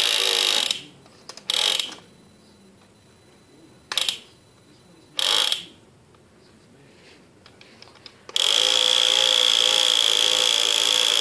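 Toy hammer drill buzzing in four short bursts, then running steadily for about three seconds near the end.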